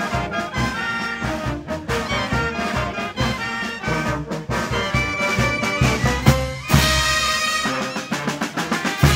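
Peruvian brass band of trumpets, saxophones, clarinets and sousaphones playing a lively tune over snare drum and bass drum beats. Crash cymbals join about two-thirds of the way through.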